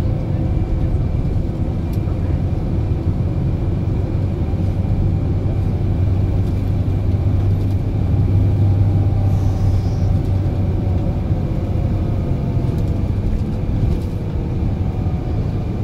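Inside a Scania K400EB tour coach under way: a steady low drone from its rear-mounted diesel engine, with tyre and road noise. The drone grows a little louder about halfway through, then eases off.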